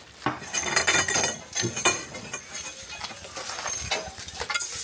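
Metal poles clanking and scraping against one another as they are picked up and moved, with repeated sharp clinks and a ringing metallic note.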